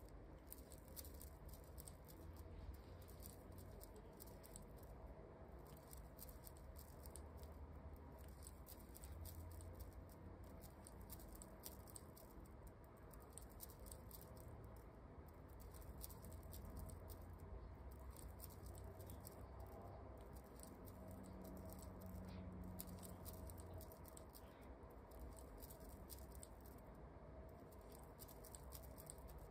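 Near silence: faint irregular rustling and light clicking of a metal crochet hook drawing yarn through stitches, over a low hum.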